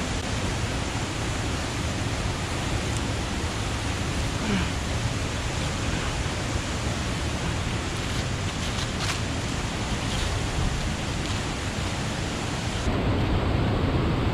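Steady rush of falling and flowing water from a waterfall and river. Near the end the sound turns duller and heavier.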